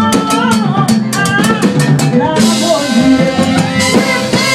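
Live band playing, with the drum kit prominent: quick drum and rimshot hits over a bass line and other pitched instruments, and a bright cymbal wash coming in about halfway through.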